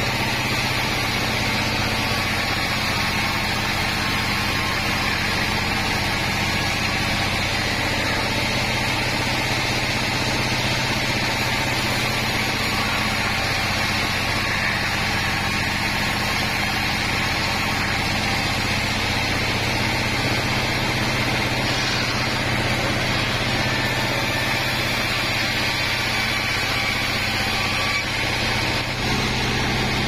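A 36-inch band sawmill running steadily, its blade ripping lengthwise through a wooden beam over a constant machine hum.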